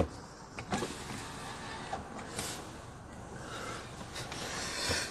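Handling noise from a phone being moved about inside a car cabin: low rustling with a few light knocks, one about a second in and another near the end.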